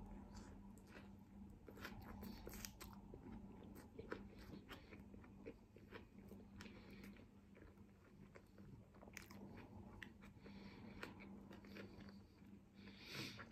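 Faint close-up chewing and wet mouth clicks from eating chicken shawarma in flatbread, with a slightly louder bite near the end.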